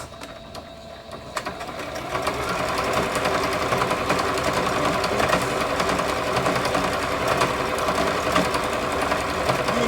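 Domestic sewing machine running fast, the needle stitching rapidly in free motion to build a dense bar tack across the end of a buttonhole. It picks up speed over the first two seconds, then runs steadily.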